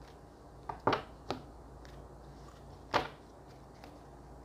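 Oracle cards being handled as a card is drawn from the deck: a few sharp card snaps and taps. The loudest come about a second in and again about three seconds in.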